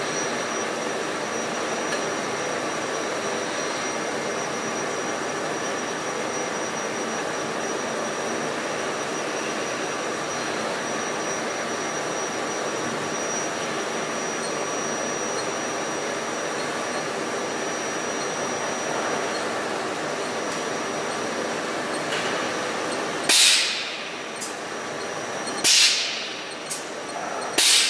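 Steady machine noise from a Yaskawa Motoman welding robot cell, with a faint high whine, cutting off about 23 seconds in. Three short, loud hissing bursts follow near the end, each dying away quickly.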